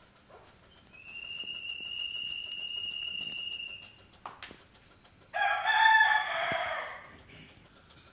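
A steady high-pitched beep holds for about three seconds and is followed by a single click. Then a rooster crows loudly, starting suddenly and fading away over about a second and a half.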